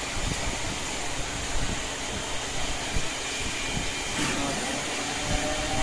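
CNC machine running with steady mechanical noise. About four seconds in there is a click, then a whine that rises slowly in pitch.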